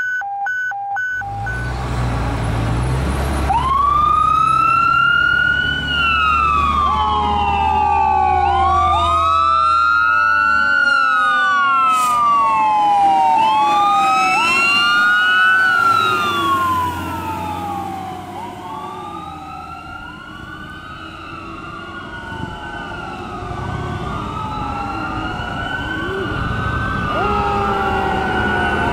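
Fire engine's Whelen electronic siren wailing in slow rising and falling sweeps, over the low rumble of the truck's engine, as Engine 1 (a 2006 Spartan Gladiator Classic/Smeal pumper) responds to a call. A few short beeping tones sound at the very start. The sound grows quieter about two-thirds of the way through as the truck moves away.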